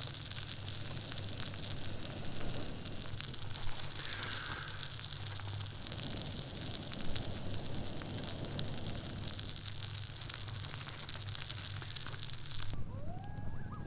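Small wood campfire of stacked sticks crackling and hissing as it catches from embers, with a few sharper pops, while a person blows into the embers in long breaths to get it burning. Near the end the sound changes abruptly and a few faint gliding tones come in.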